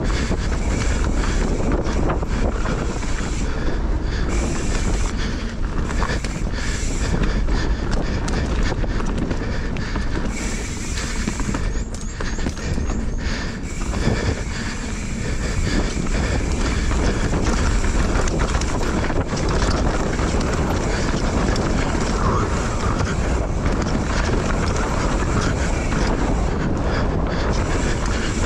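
A mountain bike descending a rough dirt trail, heard from a bike- or rider-mounted camera: tyres running over dirt, roots and rocks, with constant rattling and knocking from the bike over the bumps and wind rumbling on the microphone.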